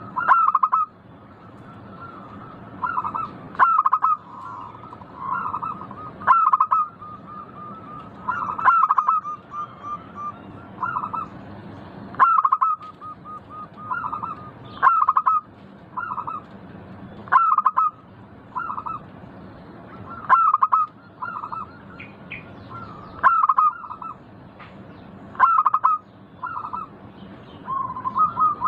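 Zebra dove (perkutut) cooing its song: short phrases of quick, rapidly repeated coos, phrase after phrase every second or two, over a low steady background hum.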